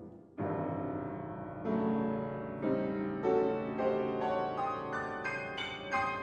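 Grand piano played solo: after a brief hush a chord is struck, then a run of chords that come quicker and quicker and climb higher in pitch, each left ringing over the next.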